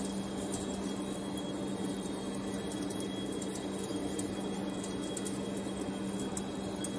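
Large vertical lathe running with a slewing-bearing ring turning on its table: a steady low machine hum with a faint high whine.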